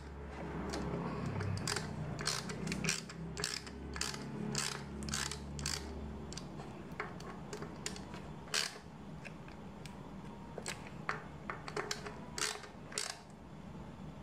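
Ratchet wrench clicking in short, irregular runs as the bolts of a bicycle disc brake rotor are tightened, with a low hum under the first half.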